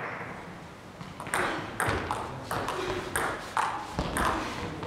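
Table tennis rally: the celluloid ball clicking sharply off the bats and the table, a run of quick clicks about two a second starting about a second in, each with a short hall echo.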